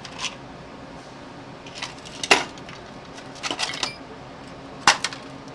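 Scattered sharp metallic clinks and clatter, about half a dozen in all, the loudest about two and a half seconds in: metal parts and hand tools being handled.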